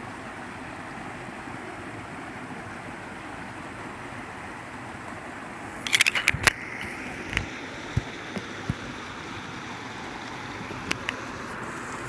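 Small stream cascading over boulders, a steady rushing of water. A quick cluster of sharp knocks comes about halfway through, and a few faint ticks follow.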